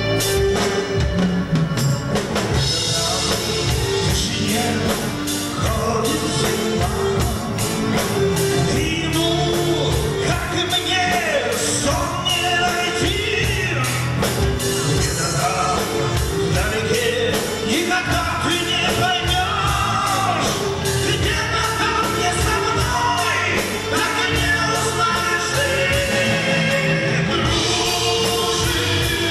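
Rock song playing at full band: a drum kit keeping a steady beat under guitars and a lead melody line that bends in pitch.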